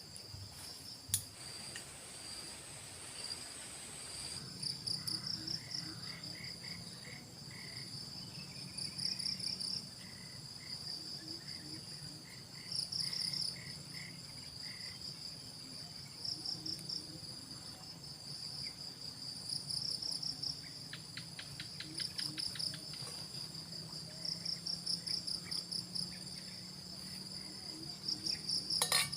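Crickets and other insects chirping in repeated pulsed bursts over a steady high-pitched buzz. A single sharp click comes about a second in, and a brief run of rapid ticks about three-quarters of the way through.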